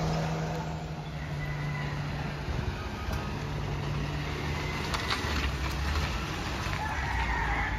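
Suzuki DA64W minivan's small engine idling steadily with a low hum. A short wavering high-pitched cry comes near the end.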